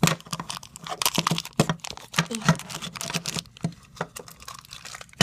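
Plastic toy packaging being handled and opened: a string of irregular crinkles, taps and clicks.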